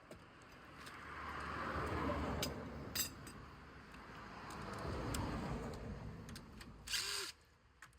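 Metal clinking and scraping handling noise that swells and fades, with a couple of sharp clicks, then, about seven seconds in, a short whirr of a cordless impact driver spinning up and stopping, likely undoing a wheel nut.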